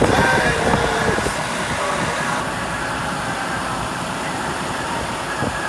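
Charter coach bus running at idle with a steady engine and air noise, with people's voices in the first second or so.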